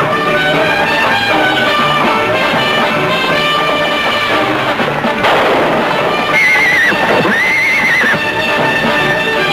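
Dramatic orchestral film-score music with a horse's shrill, wavering whinnies. About five seconds in there is a sudden noisy burst, then two high wavering cries as the horse is brought down.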